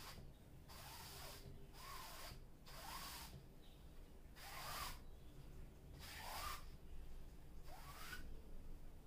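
Wide flat varnish brush swept across a stretched canvas, about six strokes, each a short scratchy swish with a faint rising squeak.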